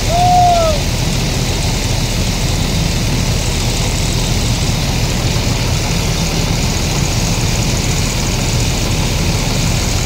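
Intercity coach's diesel engine running low and steady as the bus slowly reverses. Near the start there is one short rising-then-falling tone.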